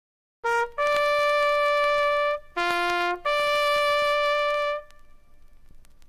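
Bugle sounding a short call of natural-series notes: a quick pickup note, a long held note, a brief lower note, then the long note again, dying away in reverberation.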